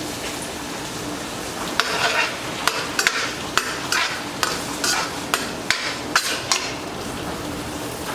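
Rice frying in oil in a pan, sizzling steadily, while a utensil stirs it and scrapes and clicks against the pan about twice a second from about two seconds in until near the end. This is the rice being toasted golden in oil for Mexican red rice.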